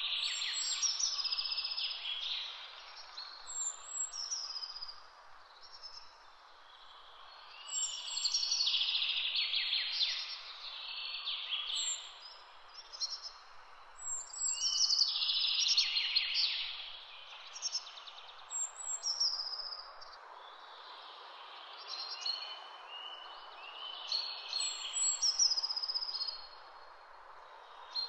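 A songbird singing high phrases of two to three seconds each, repeated about every six or seven seconds, over a steady outdoor hiss.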